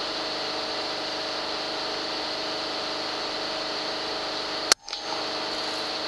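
A single shot from a Daystate Wolverine R .22 pre-charged pneumatic air rifle, a sharp crack about three-quarters of the way in, over a steady hum and hiss. The sound cuts out for a moment just after the shot.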